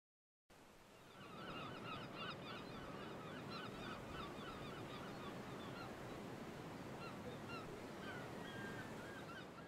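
Faint chorus of a flock of birds, with many short, arching calls repeated over and over above a steady background hiss. It fades in about a second in.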